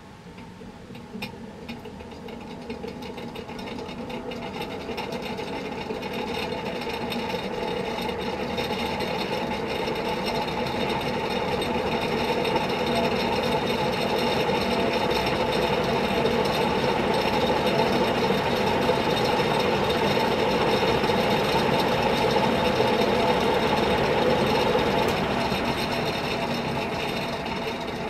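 Vintage NF industrial three-blade ceiling fan running on a solid-state speed control: its motor hum and blade whoosh build up steadily as it speeds up, then hold at high speed.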